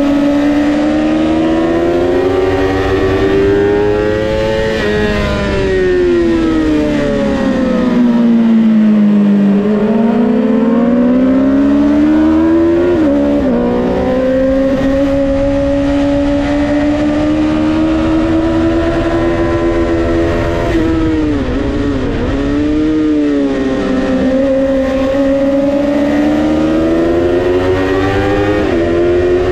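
Honda CBR650R inline-four engine at racing speed, heard from on the bike. Its pitch climbs under throttle and drops sharply at upshifts about 13 s and 29 s in; it falls away steadily around 6–10 s and wavers through quick downshifts around 21–23 s.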